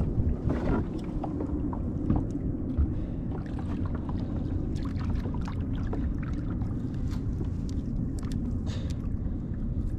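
Steady low rumble of water moving against a fishing kayak's hull, with scattered small knocks and clicks.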